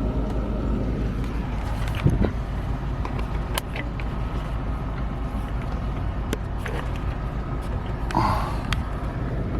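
Car driving: a steady low road and engine rumble, with a few light clicks and knocks.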